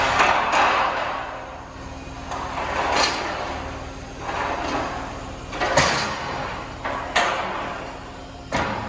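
Steel stock being worked in a metal shop: repeated rasping, scraping surges with several sharp metallic clanks, the loudest just under six seconds in and again around seven and eight and a half seconds.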